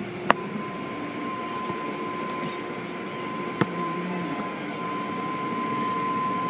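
Automatic car wash heard from inside the car: water spray and cloth brushes working over the car make a steady rushing noise. A faint steady high tone joins shortly in, and a couple of sharp knocks sound.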